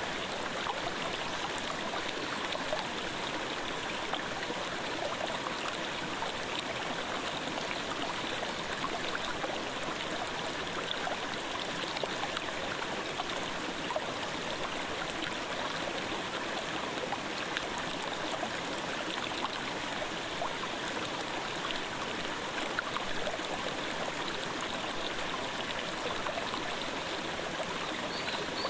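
Clear mountain stream murmuring, a steady, even rush of running water.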